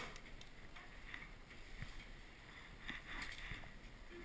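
Faint rustling and small ticks from handling a recurve bow and a wooden arrow as the arrow is nocked and the bow is raised and drawn, with a longer soft rustle about three seconds in.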